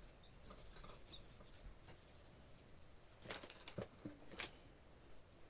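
Near silence: quiet room tone, with a few faint clicks about three to four and a half seconds in from small parts being handled on the workbench.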